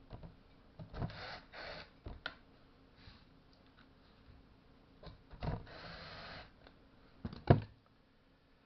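Tools and small metal parts being handled on a workbench: scattered clicks, two short rustling stretches, and a sharp knock about seven and a half seconds in.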